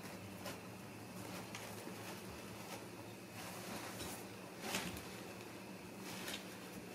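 Faint rustling and light scratching as kittens paw through flowers in a wicker basket, with a few brief louder rustles, the loudest nearly five seconds in, over a steady low hum.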